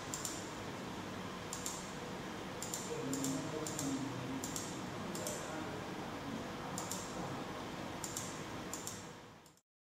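Computer mouse button clicks, about ten of them at irregular intervals, over a steady background hiss; the sound cuts off suddenly near the end.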